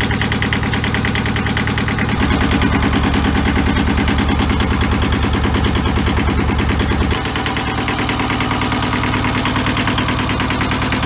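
An engine running with a fast, even pulsing beat; it gets louder about two seconds in and drops back about seven seconds in.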